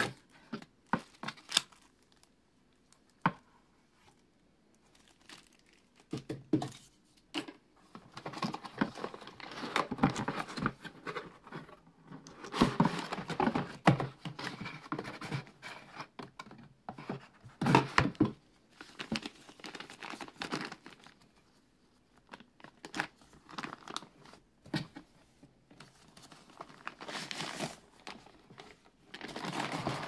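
Cardboard box and packaging handled by hand: irregular rustling, scraping and crinkling of cardboard flaps, paper and plastic wrap, with scattered sharp clicks and taps. It is busiest and loudest through the middle and again near the end, as the lens is worked out of its wrapping.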